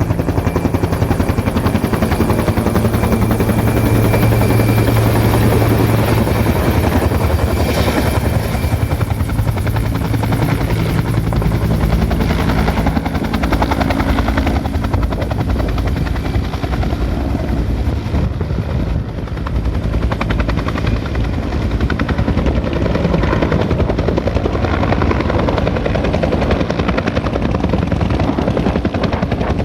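Rescue helicopter hovering or manoeuvring: the rotor's fast, steady chop over the turbine's hum, loud throughout, easing slightly about two-thirds of the way in.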